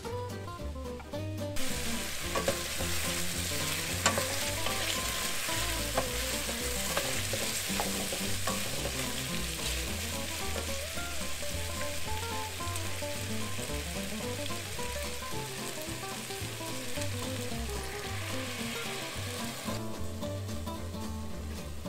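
Chicken wings and garlic sizzling as they fry in a stainless steel pot, stirred with a wooden spoon that knocks against the pot a few times. The sizzle starts about a second and a half in and drops away near the end as a dark sauce is poured over the chicken. Soft guitar music plays underneath.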